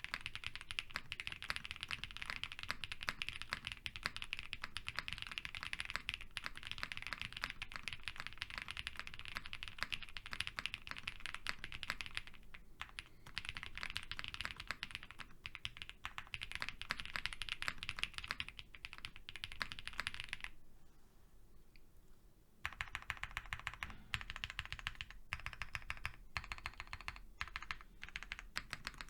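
Typing on a custom Odin V2 mechanical keyboard fitted with lubed Whipped Cream switches, a polycarbonate plate, GMK keycaps, leaf-spring gasket mounting and all its foams. There is a fast, dense clatter of keystrokes for about twenty seconds, a pause of about two seconds, then shorter runs of key presses.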